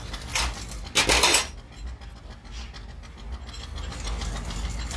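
Metal hub parts being handled on a truck wheel hub as a ring gasket is pressed over the studs: a short scrape, then a louder scraping rub about a second in, followed by light clinks and rubbing.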